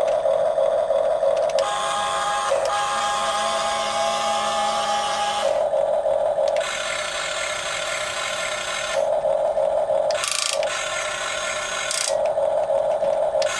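A HuiNa 1550 1/12-scale RC excavator's electric motors and gearboxes whirring as the cab swings round and the boom and bucket move. The whir changes in tone every few seconds as one motion stops and another starts.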